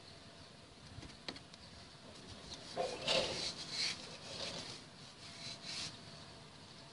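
Faint rustling and light scraping in a few short patches about halfway through, from a hand brushing over the dusty lower suspension arm, with a couple of small clicks.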